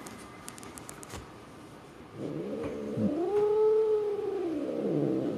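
A long-haired tabby cat gives one drawn-out low yowl about two seconds in, rising in pitch, holding, then sinking over about three seconds. It is a fierce stray cat's warning cry at being stroked with a glove. A few faint rustling clicks from the handling come first.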